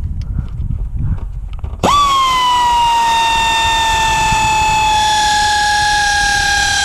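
Power tool motor whining as it runs a starter mounting bolt in, starting abruptly about two seconds in. It holds one steady whine that sinks slowly in pitch as the bolt tightens, with a low rumble of handling before it.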